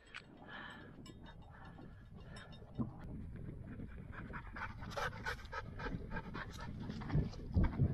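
Nova Scotia duck tolling retriever panting in quick, rhythmic breaths, growing louder about halfway through, with a few low thumps near the end.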